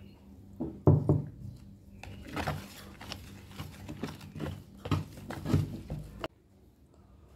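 Flour-and-water batter being stirred with a plastic spoon in a plastic bowl: irregular scraping and knocking strokes that stop abruptly about six seconds in.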